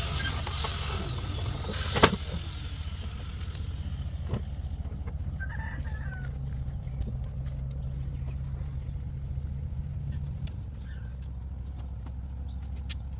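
A steady low hum like a running motor. A single sharp knock comes about two seconds in, and a short animal call, like a chicken's, comes about six seconds in.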